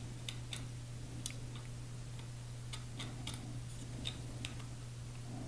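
Faint, irregular clicks and light taps of small metal folding-knife parts being handled and fitted during reassembly, over a steady low hum.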